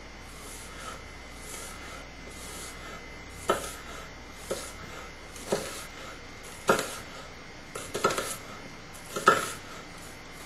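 Kitchen knife slicing an onion, its blade knocking sharply on a cutting board about once a second, starting a few seconds in, with a few quicker knocks near the end.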